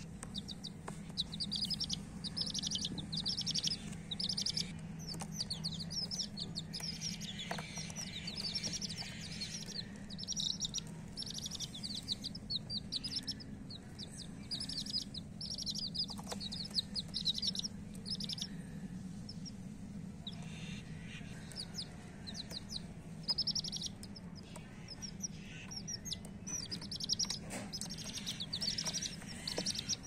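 Chicken chicks peeping continuously: rapid high-pitched peeps in quick series, one after another throughout, over a steady low hum.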